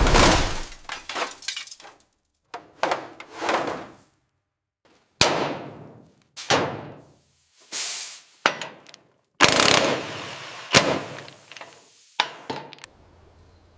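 A string of short workshop sounds edited together: about eight knocks, clatters and scrapes, each starting sharply and fading, with abrupt cuts to silence between them. A faint low hum comes in near the end.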